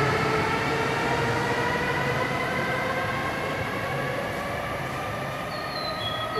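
JR Kyushu N700S 'Kamome' shinkansen pulling out of a station: its traction motors whine, the tones rising slowly in pitch over the train's rumble as it picks up speed, growing gradually quieter as it draws away.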